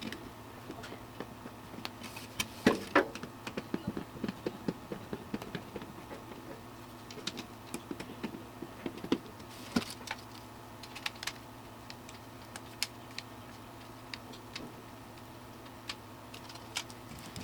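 Irregular small clicks, taps and knocks of hands handling screws and metal and plastic computer parts, such as case fans and the case, over a steady faint hum.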